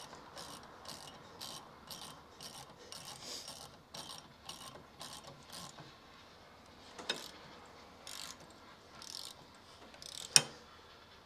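Socket ratchet clicking in quick, even strokes, about three a second, as a brake caliper bolt is wound in. The strokes give way to a few slower single clicks, ending in a sharp clack about ten seconds in.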